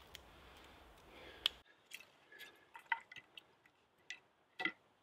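Short wooden knocks and clicks of cut logs being set down and laid together on a pile, a handful of them spaced over the last three seconds, the loudest near the end. Before that, a faint steady hiss with one sharp click.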